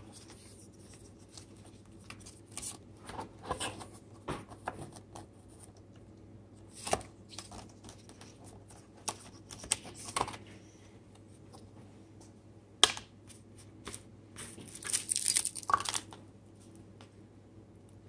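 Hands handling a watch box and its cardboard and paper packaging: scattered light clicks, knocks and rustling, with one sharp click about two-thirds of the way through and a longer rustle shortly after.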